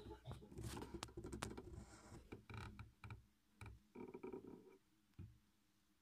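Quiet handling noise: soft rustling and scraping with scattered light taps, as a handheld camera is moved through a toy dollhouse bedroom. The noises come in short spells and die away about five seconds in.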